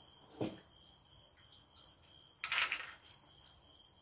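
Crickets chirring steadily in a high, even drone. About half a second in there is a sharp click, and at about two and a half seconds a brief louder noise that lasts about half a second.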